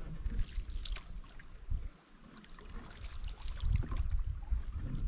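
Wooden canoe paddle stroking through lake water, with water trickling and splashing off the blade: two strokes, about a second in and again around three seconds in.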